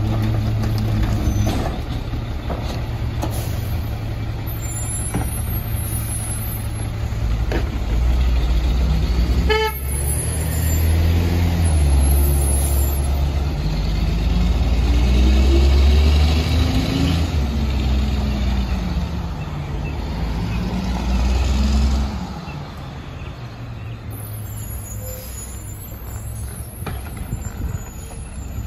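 Mack MR garbage truck's diesel engine idling, then a short toot about ten seconds in. The engine then revs up and pulls, its pitch climbing and falling twice, and settles back to idle a little after twenty seconds in.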